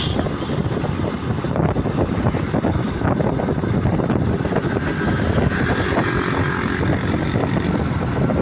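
Continuous rumble of a moving vehicle, with rough road and wind noise and no clear engine note.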